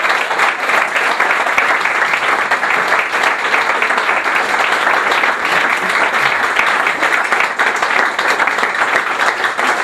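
Audience applauding, a dense steady clapping that lasts for several seconds.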